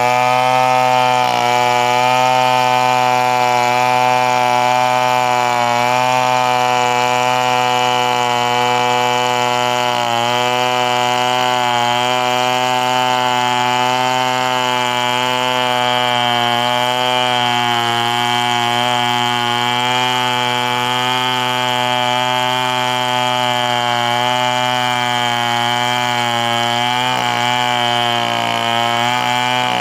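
Two-stroke chainsaw running steadily at high revs, its pitch sagging slightly now and then as the load on it changes.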